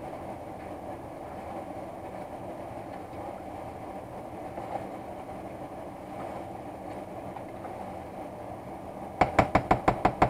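Fork stirring chicken and sauced penne pasta in a mixing bowl over a steady background noise. About nine seconds in, a quick run of sharp clicks, about eight a second, as the fork raps against the bowl.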